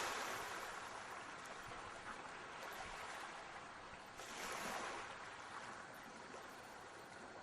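Sea waves washing onto the shore: a soft rushing that is loudest at the start, eases off, and swells again about four seconds in.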